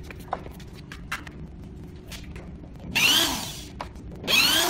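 Hand-held power drill-driver run in two short bursts about a second apart, its motor pitch rising and falling with each run, as screws are driven out of a wooden shipping crate. Light clicks and knocks come before it.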